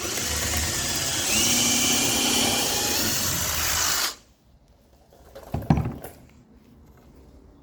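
Power drill driving a wood screw into the mitered corner of a 2x2 wooden frame, running steadily for about four seconds and stopping abruptly. About a second and a half later comes a sharp knock.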